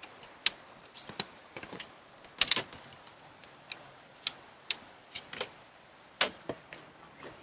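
Irregular sharp clicks and light knocks of objects being handled, roughly two a second, with a short clatter about two and a half seconds in.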